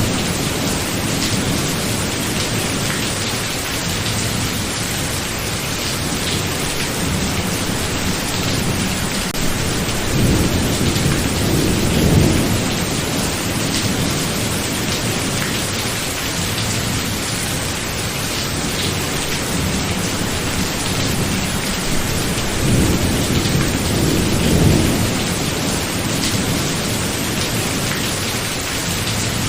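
Steady, heavy rain in a thunderstorm, with thunder rumbling low twice: about ten seconds in and again a little past twenty seconds.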